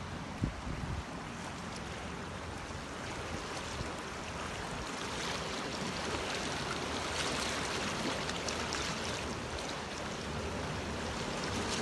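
Floodwater rushing down a wadi after heavy rain: a steady rush of water, getting a little louder about halfway through. A brief thump about half a second in.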